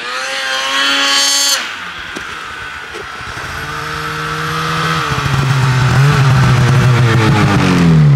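Snowmobile engines. One revs high and cuts off about a second and a half in. Then a Polaris snowmobile approaches, growing steadily louder, and its engine drops in pitch as it slows alongside near the end.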